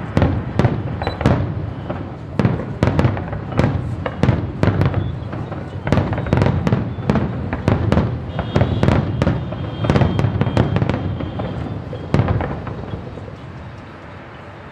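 Fireworks going off in rapid succession: many sharp bangs and crackles, thinning out and growing quieter over the last couple of seconds.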